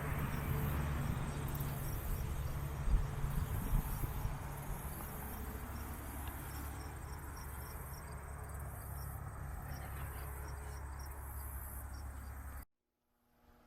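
Crickets chirping in a steady, even rhythm over a low rumble; all of it cuts off suddenly near the end.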